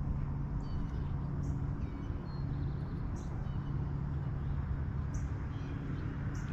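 Steady low hum of a bass boat's bow-mounted electric trolling motor, over a fluttering low rumble, with short high bird chirps coming about once a second.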